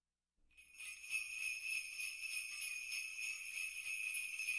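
Sleigh bells jingling steadily, coming in about half a second in after a brief silence.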